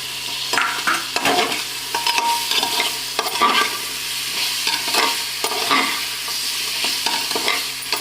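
Chopped potatoes being stirred into an onion-tomato masala frying in oil in a pressure cooker: a steady sizzle with repeated irregular scrapes against the pot.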